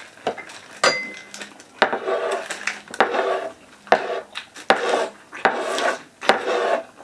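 Table knife scraped across a wooden tabletop in repeated strokes, roughly one a second.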